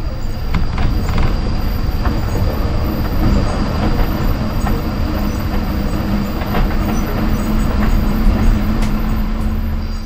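Car driving along a rough dirt road: a loud, steady rumble of tyres and rattling, with scattered knocks of gravel.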